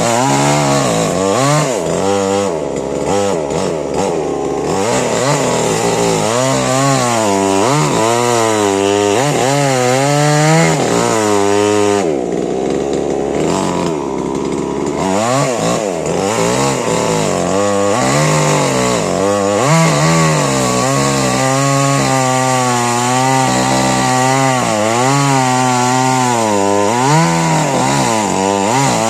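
Stihl MS 881 two-stroke chainsaw running hard in a cut through a tamarind trunk, its engine pitch rising and falling repeatedly as it bogs under load and clears.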